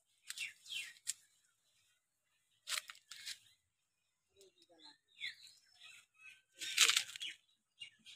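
Leaves and twigs rustling in several short bursts, the loudest about seven seconds in. A few brief, falling bird chirps sound between them.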